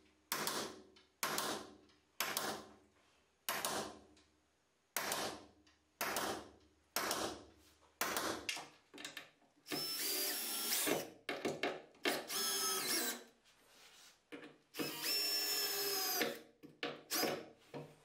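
Hammer blows on a wooden carcass, about a dozen, roughly one a second, each ringing briefly. Then a cordless drill-driver runs three times for a second or two each, with a rising whine, driving screws into a chipboard shelf.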